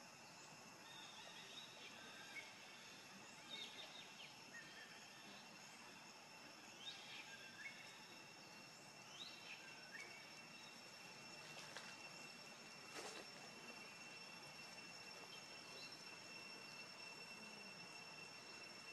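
Near silence: faint outdoor ambience with a steady high insect drone and scattered short bird-like chirps, and a single click about two-thirds of the way through.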